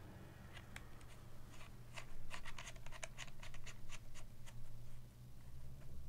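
Small irregular clicks and scrapes of an air hose's threaded metal fitting being screwed by hand onto the outlet of a small airbrush compressor. They are busiest from about two to five seconds in.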